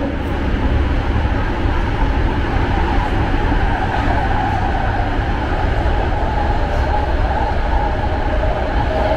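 BART train running: a steady rumble of wheels on track with a constant tonal hum over it.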